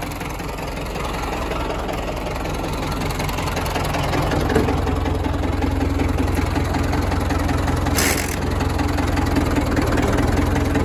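Ford farm tractor's engine running as the tractor is driven, growing louder over the first few seconds and then holding steady. A brief hiss about eight seconds in.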